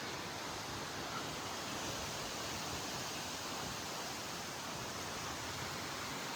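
Steady, even rushing hiss of outdoor ambience, with no distinct events.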